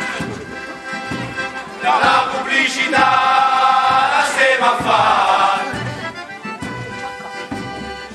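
Group of men singing a traditional Molise bufù song in chorus, with low, roughly regular pulses of a bufù friction drum beneath. The singing swells about two seconds in, holds long notes, then grows softer for the last few seconds.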